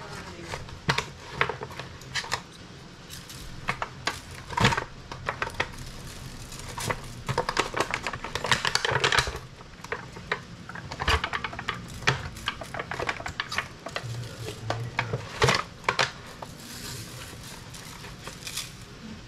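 Kitchen handling sounds while fish is seasoned: irregular clinks and knocks of dishes and utensils, with a stretch of scraping and rustling about eight seconds in.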